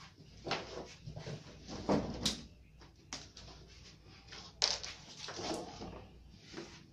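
Irregular handling noises as a person works around a Sanyo 21-inch flat CRT television: scattered light knocks, clicks and rustles, with the sharpest clicks about two seconds in and again at about four and a half seconds.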